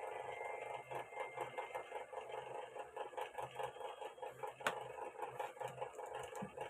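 Faint, steady, rapidly ticking mechanical hum in the background, with one sharp click about two-thirds of the way through as a phone's lithium-ion battery is set down on an anti-static bag.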